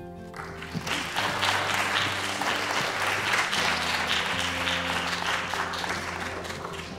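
Audience applauding as a monologue ends, the clapping starting just after the last line and thinning near the end. Soft background music with long held low notes plays underneath.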